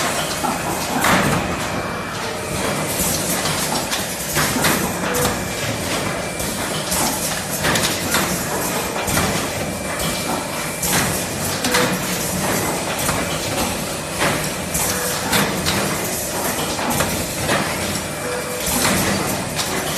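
Automatic multi-lane cup filling and sealing machine running: a steady mechanical noise with repeated clacks and knocks from its moving parts as it cycles through filling and heat-sealing.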